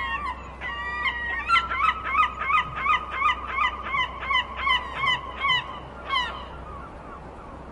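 A bird calling in a fast series of short calls, about three a second, each dropping in pitch at its end, for several seconds, with one last call after a short pause.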